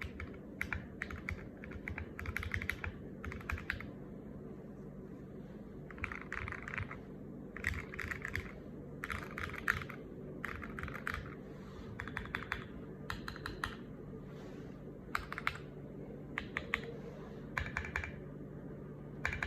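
Typing on a custom Tofu65 mechanical keyboard with lubed Alpaca linear switches on a brass plate and SA-profile ABS doubleshot keycaps: quick bursts of keystrokes with short pauses between them.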